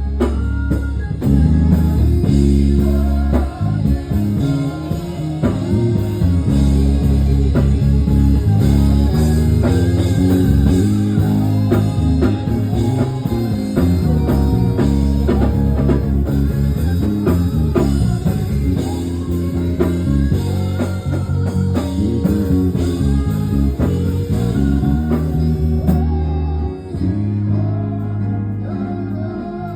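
Music with guitar and a strong bass line, with singing.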